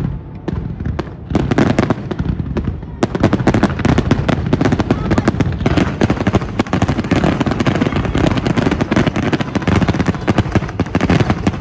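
Fireworks going off in a rapid barrage of bangs and crackles: scattered at first, then much denser from about three seconds in, with many reports each second.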